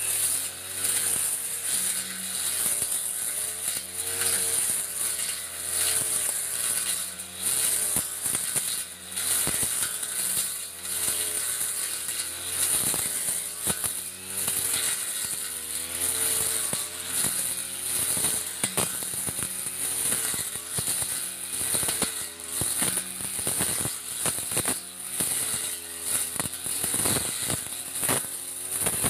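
Backpack brush cutter engine running at high revs, its pitch wavering and its loudness swelling and dropping about every two seconds as the cutter is swung back and forth. Many sharp clicks and rattles come from the cutting head striking thick grass and stalks.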